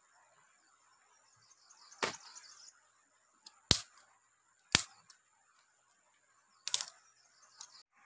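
Dry sticks cracking sharply as they are broken, four loud snaps a second or two apart, the last one doubled.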